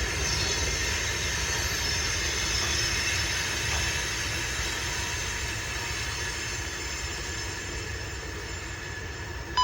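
Freight train cars rolling past on the rails: a steady rumble and hiss of wheels that slowly fades.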